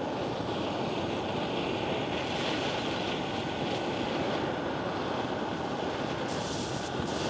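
Propane gas burner flame running with a steady roaring hiss.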